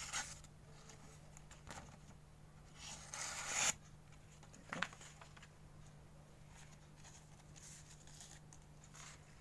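Short scraping and rustling sounds of a karambit knife being handled, the loudest a scrape of about a second around three seconds in, followed by a sharp click near five seconds.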